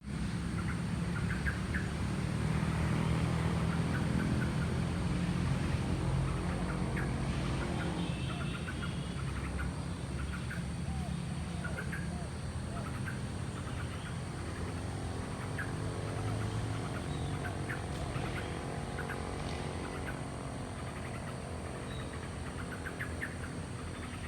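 Birds chirping in short, scattered calls over a steady low engine rumble from vehicles, louder in the first half.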